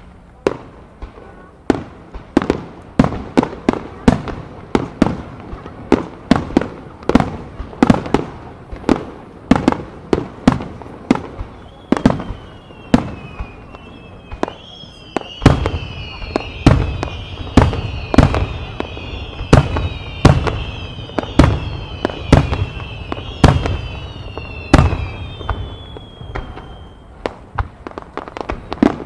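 Aerial fireworks bursting in rapid succession, two or three sharp bangs a second, with deeper booms joining about halfway through. From about twelve seconds in until near the end, several overlapping whistles fall in pitch above the bangs.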